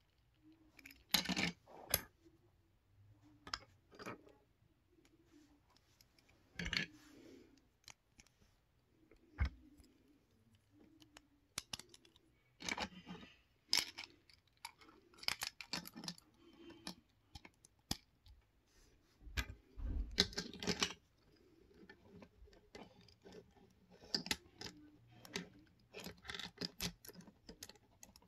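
Plastic LEGO Technic bricks clicking and knocking together as they are handled and fitted, in scattered short clicks and brief rustles.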